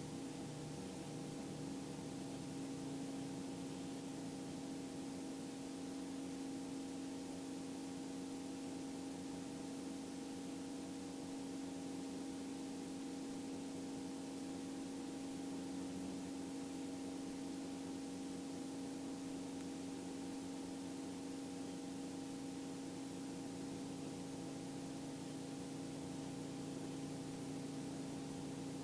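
Robinson R44 II helicopter cabin noise in flight: a steady hum made of a few even tones over a constant hiss, unchanging throughout.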